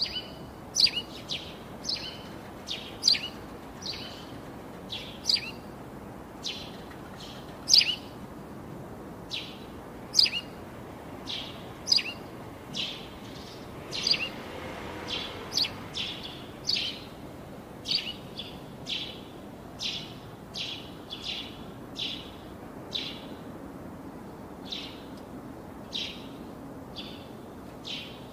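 A bird chirping over and over: short, sharp, high calls, about one or two a second.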